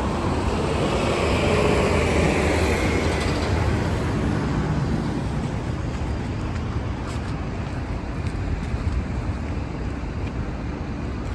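Street traffic noise, with a passing vehicle making it loudest about two seconds in before it eases off to a steady hum.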